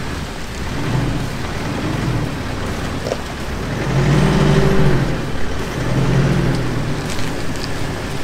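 Car engine under load, its pitch swelling and easing three times, loudest about halfway through, over steady road and tyre noise.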